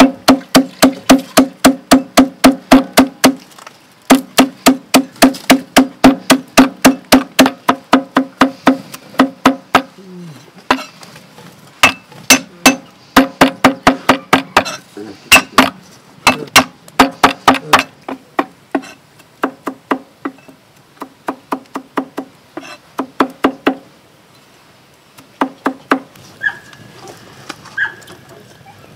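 Cleaver chopping rapidly on a thick round wooden chopping block, mincing shallots, ginger and herbs: about five knocks a second, each with a low ring from the block. The runs break briefly, thin out, and stop a little over three-quarters of the way through.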